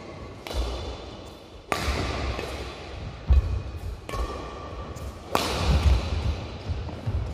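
Badminton rally: several sharp cracks of rackets striking a shuttlecock, a second or two apart, with the strongest about two seconds in and again past five seconds, between low thuds of footsteps on the court. The hits echo in the hall.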